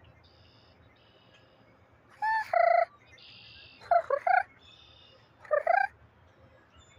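Birds calling: a crow gives three bursts of loud harsh calls, about two to three seconds in, at four seconds and at five and a half seconds. Between them come fainter, higher calls from red-winged blackbirds.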